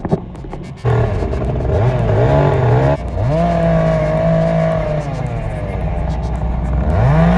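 Chainsaw engine coming up to speed about a second in, then revved hard. Its pitch climbs and falls several times, holds high and steady for a stretch, and dips and rises again near the end.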